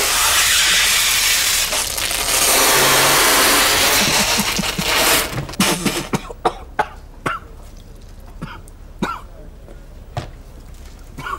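Sparkling water spraying out of a freshly opened bottle in a long, loud hiss that stops about five and a half seconds in. A run of short, sharp coughs and splutters follows.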